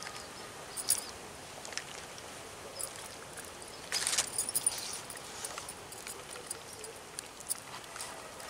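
A hand mixing raw goat offal in spice marinade in a steel bowl: scattered faint clicks and squishes against an outdoor background, with a denser burst about four seconds in.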